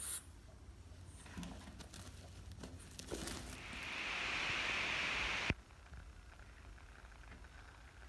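A frog's defensive scream: one long, hissing cry that swells over about two seconds and then cuts off sharply. Before it come a few soft rustles and taps.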